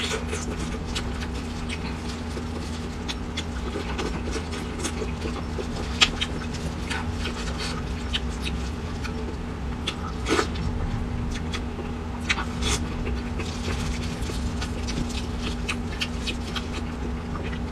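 Close-miked chewing and wet mouth smacking of someone eating fatty braised pork belly, with irregular sticky clicks, the sharpest about six and ten seconds in, over a steady low hum.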